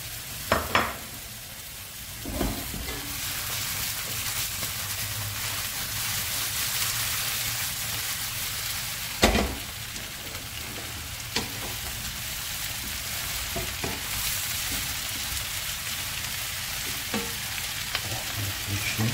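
Potatoes, sausages and onion frying in a pan with a steady sizzle, freshly added tomato wedges among them. A few sharp knocks of a wooden spatula against the pan as the food is stirred, the loudest about nine seconds in.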